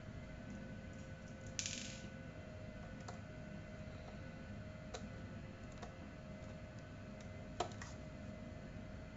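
Faint clicks and a short scrape from the plastic housing and parts of a ZTE MC801A 5G router being handled and pried apart. The scrape comes about a second and a half in, and a few sharp clicks follow, the loudest near the end, over a steady low hum.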